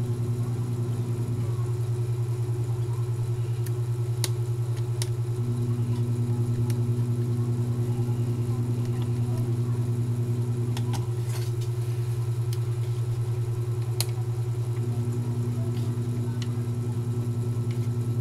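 A steady low machine hum, with a second, higher tone that comes and goes three times. A few light clicks are heard over it.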